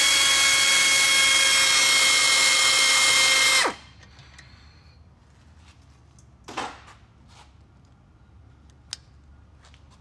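Cordless power tool driving a 7 mm Allen bit to undo a rear brake caliper bolt: the motor runs at a steady pitch with an even whine for about four seconds, then winds down and stops. A short knock and a sharp click follow later.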